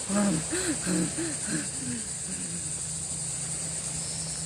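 Steady high-pitched insect noise. A person's voice makes a run of short rising-and-falling notes in the first two seconds.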